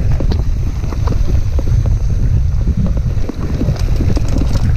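Mountain bike descending a rough dirt trail: heavy wind buffeting on the camera's microphone over the rumble of tyres on the ground, with frequent small clicks and knocks as the bike rattles over the bumps.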